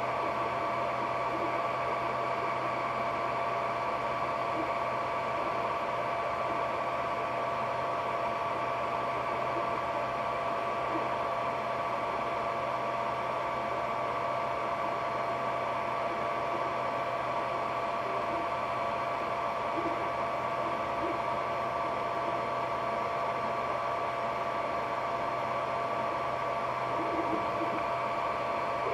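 Ender 3D printer running a print: a steady mechanical whine with two constant tones over a fan-like hiss and a low hum, unchanging throughout.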